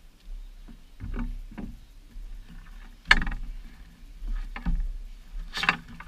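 Handling noises from unboxing a Kriega US20 bag: a series of short clicks, knocks and rustles as the bag and its packaging are handled, the loudest about three seconds in and again near the end.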